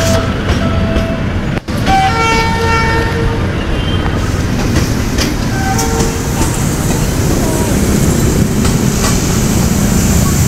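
Philippine National Railways passenger train passing close by: a steady low rumble of the coaches running on the track. Short, pitched tooting tones sound in the first three seconds or so, and there is a brief break in the sound about a second and a half in.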